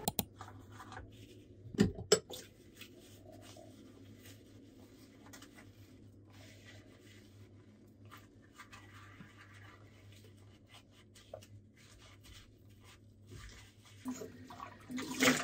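Dishes being washed by hand at a kitchen sink: a few sharp clinks of glassware about two seconds in, then quiet rubbing as a glass is scrubbed, and the tap turned on to run water near the end.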